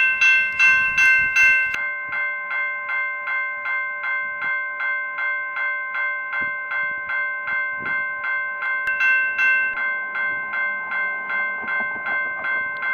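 Railroad crossing warning bell ringing in rapid, even strokes, about three and a half a second. It is louder and brighter for the first two seconds, then slightly softer. The crossing is activated with no train coming, a malfunctioning crossing.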